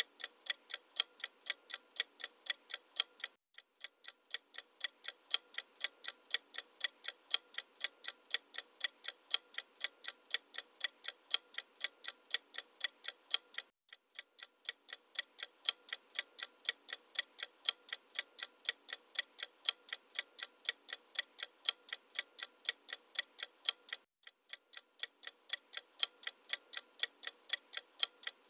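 Clock ticking sound effect, even ticks at about two a second, breaking off briefly three times as the loop restarts.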